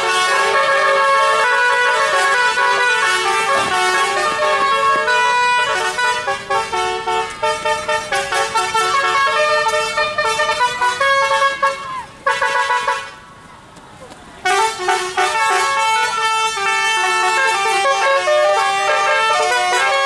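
Roof-mounted telolet horns blaring a rapid melody of stepping multi-tone notes, cutting out briefly twice past the middle, the longer gap about a second and a half, then starting up again.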